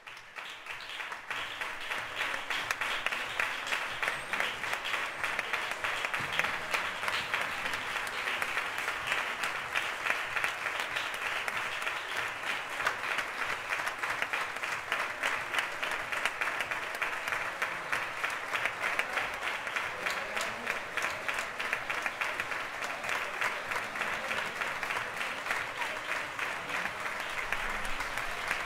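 Many people applauding together: dense, steady clapping that swells up within the first second and keeps going without a break.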